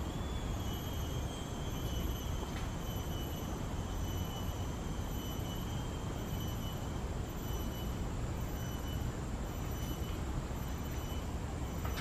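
Steady outdoor background noise: a continuous low rumble with hiss and a few faint steady high tones, with no distinct events.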